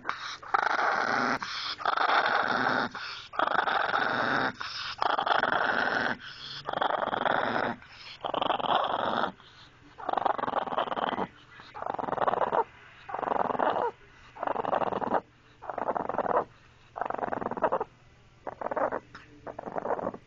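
A Chihuahua growling over and over, about fifteen growls of roughly a second each with short breaths between, getting shorter toward the end; a thin high whine rides over the first several. The growl is a grumble, not meanness, by the owner's account.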